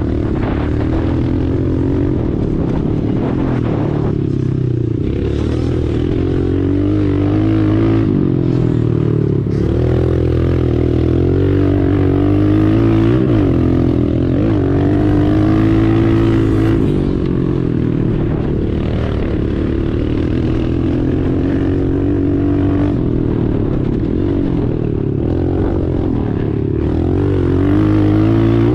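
Pit bike engine running as the bike is ridden, its revs rising and falling continuously.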